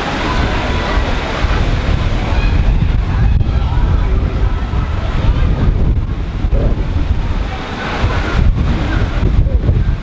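Wind buffeting the microphone, a steady low rumble, with faint voices in the background.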